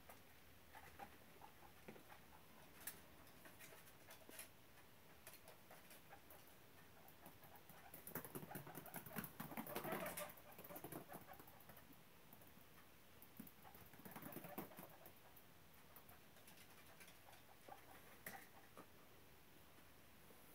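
Faint rustling and pattering of guinea pigs scurrying through the shavings of a wooden hutch, with scattered small clicks and two louder bouts of rustling, about eight seconds in and again about fourteen seconds in.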